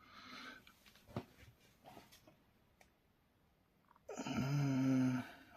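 A few faint clicks of small ignition barrel parts being handled and fitted. About four seconds in comes the loudest sound, a low, steady, voice-like groan lasting about a second.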